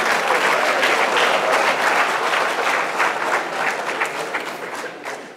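Large audience applauding, a dense patter of many hands clapping that thins out and fades near the end.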